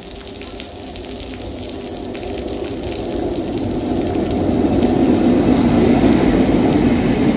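Steady hiss of heavy rain as a Class 60 diesel freight locomotive approaches and passes. Its eight-cylinder Mirrlees diesel engine grows steadily louder from about a second in and is loudest near the end.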